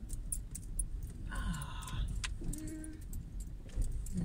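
Low engine and road rumble inside a moving Hyundai i20, with keys clinking irregularly throughout. A brief higher tone sounds about a second and a half in.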